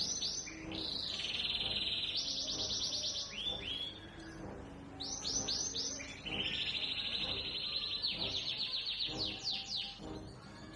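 Canary singing in two long phrases of fast trills and runs of repeated rising notes, with a short break about four seconds in. Soft music sits underneath.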